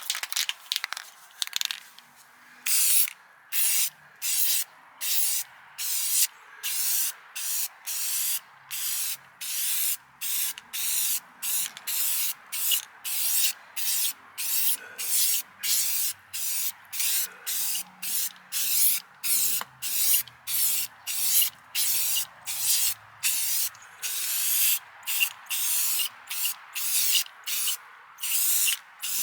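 Aerosol spray paint can hissing in a long run of short bursts, about one and a half a second, as a coat of paint goes onto a truck wheel.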